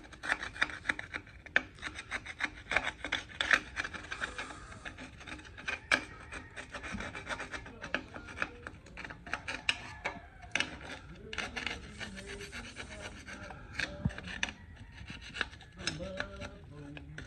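A flat metal blade scraping caked oily grime off the cast-iron block and oil pan rail of a Ford 302 V8, in many short, irregular strokes.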